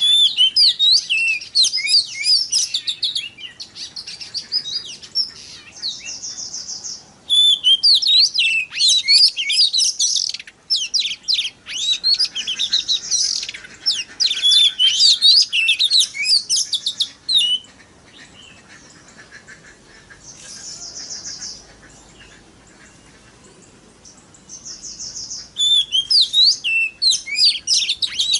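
Oriental magpie-robin (kacer) singing: long runs of rapid, varied whistled notes, broken by short buzzy trills, with a quieter pause in the middle.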